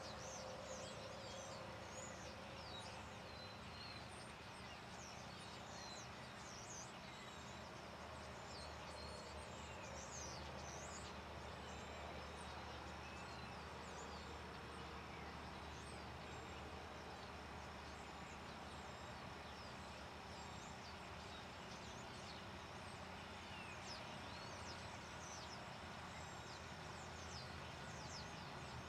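Birds chirping: many short, high chirps scattered throughout, over a steady low background hum.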